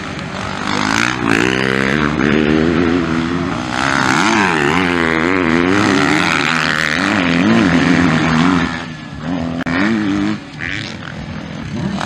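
450cc motocross bike engines revving hard and easing off through corners, the pitch repeatedly rising and falling. The sound drops back briefly near the end before climbing again.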